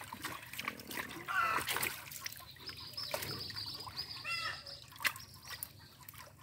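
Water splashing and trickling in a shallow, net-held pool as live chital (clown knifefish) and other fish are handled, with many small sharp splashes.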